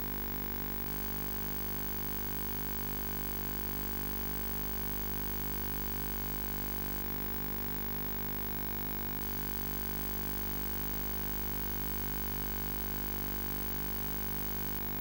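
Steady electrical hum and buzz on a VCR's audio output, a dense stack of steady tones strongest in the bass, with a few slight shifts in tone partway through.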